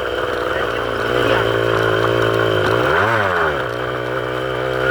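Farm bike's small engine running just after being coaxed to start, with one brief rev up and back down about three seconds in. The owner calls the bike "a bit stuffed", as it often won't start.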